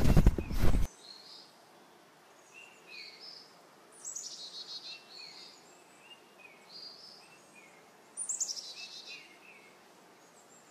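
A loud crackling noise cuts off about a second in, leaving songbirds singing: short repeated chirps and whistled notes, with a fast trilled phrase twice, about four seconds apart.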